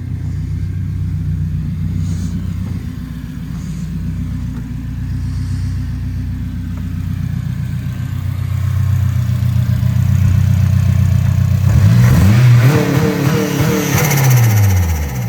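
Turbocharged Honda Accord CL9's four-cylinder engine idling steadily, then blipped twice about twelve and fourteen seconds in, the revs rising and falling each time. As the revs drop after the second blip, a rushing turbo flutter rides over the engine.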